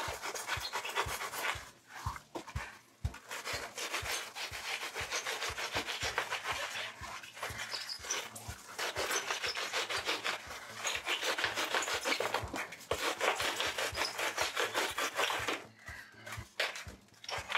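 A pruning saw cutting and carving foam board in quick back-and-forth strokes, about three a second, with a dry rasping hiss. It pauses briefly about two seconds in and again near the end.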